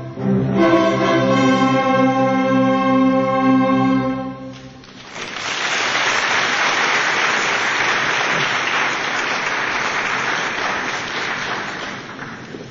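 An orchestra with bowed strings plays its closing chords, breaking off about four seconds in. The audience then applauds, fading near the end.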